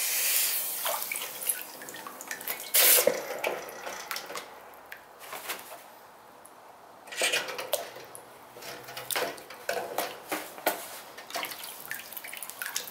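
Water sloshing and splashing in a metal bucket as a sand-cast aluminium flywheel is moved around in it to cool. A brief quench hiss at the start dies away. There is a sharp splash about three seconds in, and a run of smaller splashes and drips in the second half as the casting is lifted.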